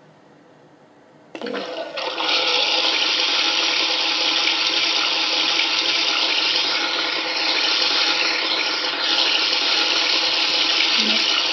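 TOTO Otohime toilet privacy sound unit, set off by a hand waved over its sensor, playing a recorded sound of flushing, running water through its speaker grille. It comes on suddenly about a second in and then runs steadily and loudly.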